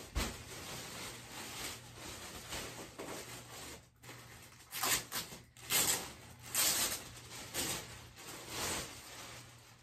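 Plastic packaging and layered dress fabric rustling and crinkling in irregular bursts as a dress is unwrapped and lifted out, busiest in the second half.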